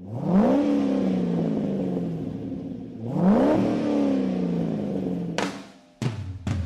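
1965 Corvette V8 revving twice: each time the pitch climbs quickly and then falls away slowly. Near the end come a few short, sharp noisy bursts.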